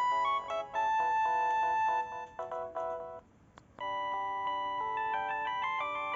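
LG GB115 mobile phone ringtones: one tune of several notes at once plays out and stops a little past halfway, followed by a short pause with a single click. The next ringtone then starts.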